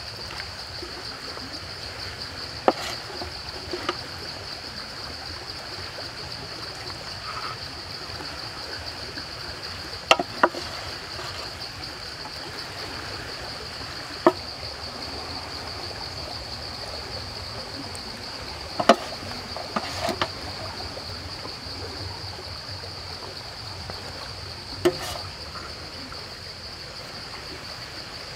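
Steady high-pitched drone of insects, with a few sharp clicks and knocks scattered through it, the loudest about ten and nineteen seconds in.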